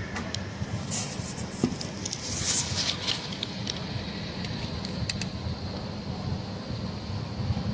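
A burning house crackling and popping, with sharp pops scattered through the first five seconds, one louder pop about a second and a half in. Under it runs a steady low rumble of idling emergency-vehicle engines.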